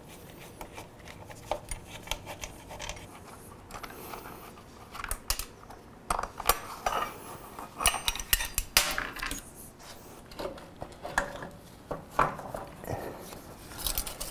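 Hand tools clinking and tapping against metal parts of a motorcycle's rear end: scattered, irregular metallic clicks and knocks, busier and louder from about halfway through.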